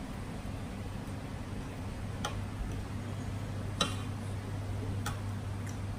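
Eating utensils tapping against a plate four or five times, the loudest about four seconds in, over a steady low hum.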